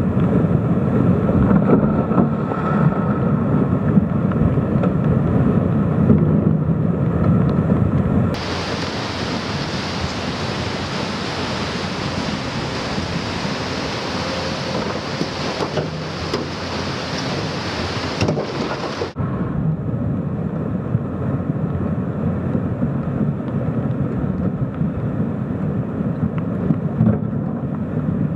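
Rushing of a fast, swollen flood river: a dense, steady noise of churning water. The sound changes abruptly about 8 and 19 seconds in, brighter and hissier in the middle stretch.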